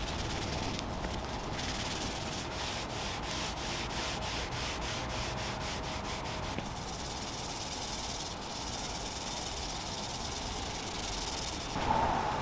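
Cloth rubbed back and forth over a wooden tabletop, working finish into the stained wood in quick, even strokes, then settling into a steadier rubbing hiss.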